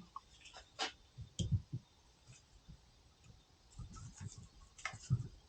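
Scattered light clicks and a few soft knocks at irregular times from tools and parts being handled while a CV axle is assembled, loudest around a second in and again about five seconds in.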